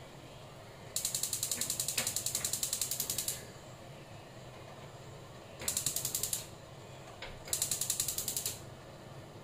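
Gas stove's electric spark igniter clicking rapidly as a burner knob is held to light the burner, in three bursts: a long one, then two shorter ones.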